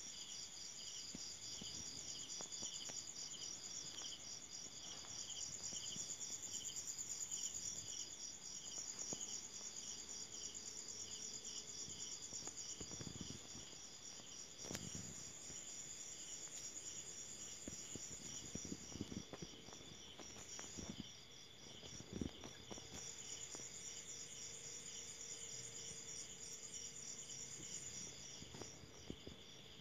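Night chorus of crickets and other insects: a fast, unbroken pulsing trill high up with a slower chirp repeating beneath it, and a few soft thumps partway through.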